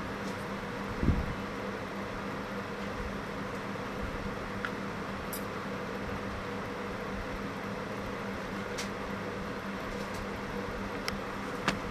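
Steady room hum, like a fan or air conditioner running, with a low thump about a second in and a few light clicks near the end.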